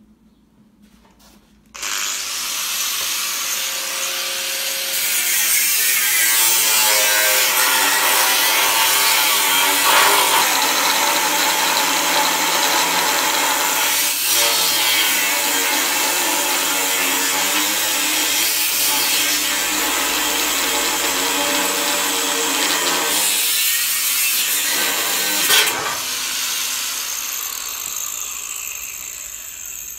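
Angle grinder with a cutting disc starting about two seconds in and cutting through a steel lorry chassis rail, running steadily under load with its pitch shifting as it bites. A sharp knock near the end, then the grinder winds down. The cutting disc is, in the user's words, a bit borderline.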